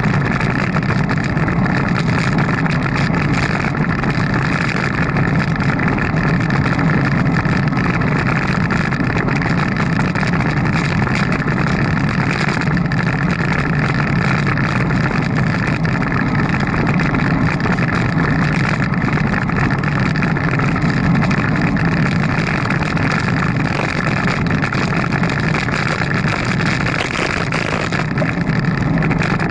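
Steady rush of wind and road noise picked up by an action camera's microphone while riding a bicycle, unbroken and without distinct events.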